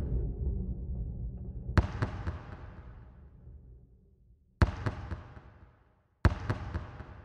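A basketball bounced slowly on an indoor court three times, each bounce a sharp slap with a long echo through the arena. A low rumble fades away over the first few seconds.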